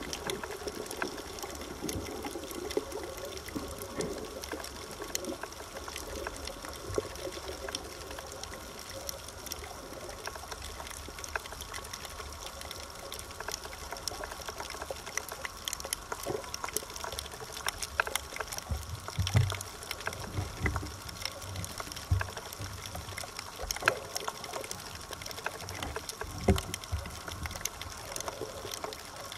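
Underwater sound on a coral reef: a steady water hiss dense with small crackling clicks, and a few louder low bubbling bursts in the last third.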